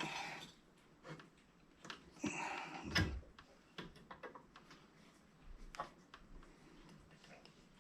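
Light metal clicks and scraping as a screwdriver works the small screw that holds the knob on a Coleman 220F lantern, with a sharper click about three seconds in.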